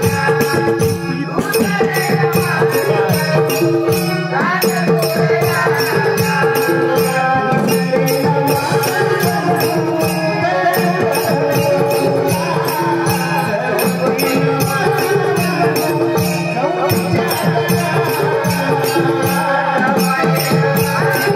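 Live Konkani naman folk music: male voices singing a melody over a held steady drone, with hand cymbals and a drum keeping a quick, even beat.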